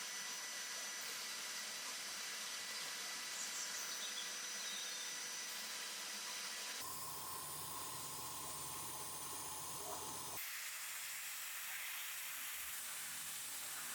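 A steady hiss that changes character abruptly twice, about seven and ten seconds in.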